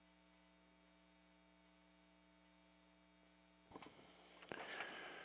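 Near silence with a faint, steady electrical mains hum; two faint clicks and a soft hiss come near the end.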